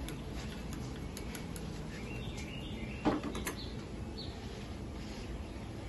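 A few faint, light snips of grooming scissors trimming a golden retriever's foot hair, then a short knock about three seconds in as the scissors are laid down on the rubber-topped grooming table. Birds chirp faintly in the background.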